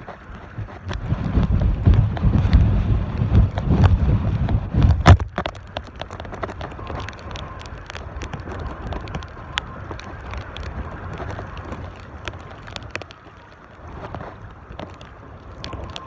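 Gale-force wind buffeting the microphone: heavy gusts for about the first five seconds, then easing to a weaker steady rush, with scattered sharp ticks throughout.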